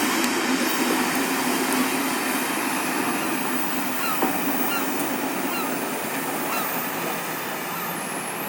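Steam-hauled passenger train rolling past, a steady rushing rumble of the coaches on the rails that slowly fades as it draws away, with a few faint short squeaks.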